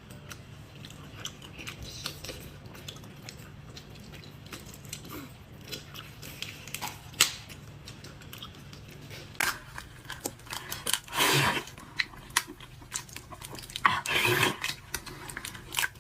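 Close-up eating sounds of a person chewing raw drunken black tiger prawns: wet chewing and small clicks of shell, with a few louder, longer noises about two-thirds of the way in and near the end.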